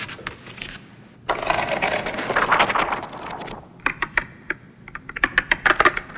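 Paper handling: a book is pulled from a shelf and a large thick page is turned, with a dense rustle lasting about two seconds. It is followed by a run of sharp, irregular clicks like keys being typed.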